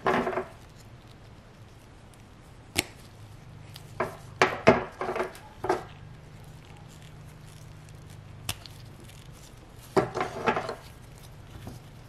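Small handling sounds from plastic-bodied fuel injectors and rubber seals in gloved hands: a sharp click about three seconds in, a run of taps and rustles from about four to six seconds, another click, and a second cluster near ten seconds. A low steady hum runs underneath.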